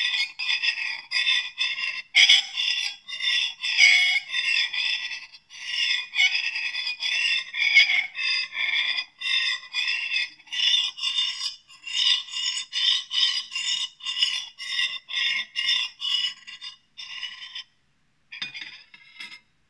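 Metal butter knife blade drawn back and forth across a plate, a run of high-pitched squeaking scrapes at about two strokes a second. They pause briefly near the end before a few last strokes.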